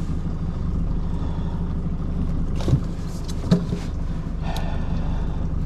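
Boat motor idling steadily, with two sharp knocks a few seconds in, about a second apart.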